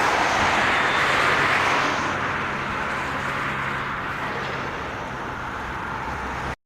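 A heavy vehicle passing by with a steady rushing noise that fades after about two seconds, leaving a steady low engine hum, then cuts off abruptly near the end.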